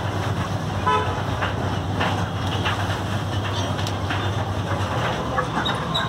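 Road traffic: a steady low engine rumble from a vehicle, which eases near the end, with a brief horn toot about a second in and a few small clicks.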